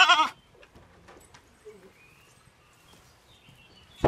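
A goat's bleat, a wavering call that cuts off just after the start. Then a faint outdoor background with a few soft bird chirps.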